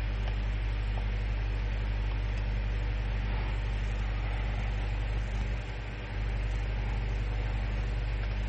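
Steady low hum with hiss, the background noise of a voice-over recording. It dips slightly for a moment about six seconds in.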